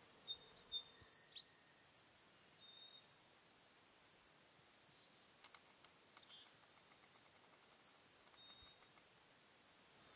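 Faint wild songbirds calling: short high whistled notes and chirps, with a busier cluster about half a second in and a short fast trill near the end, over a low steady outdoor hiss.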